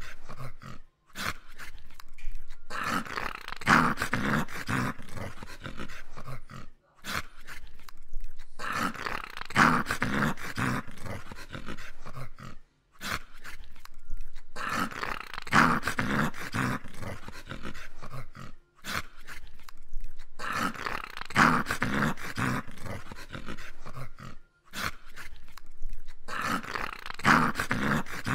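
English cocker spaniel play-growling while lying on its back, in bouts a few seconds long broken by short pauses about every six seconds.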